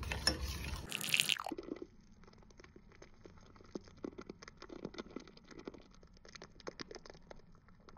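A metal spoon whisking coffee in a mug in quick strokes for about a second and a half. Then, much fainter, milk being poured into frothy coffee: soft splashing with scattered small clicks.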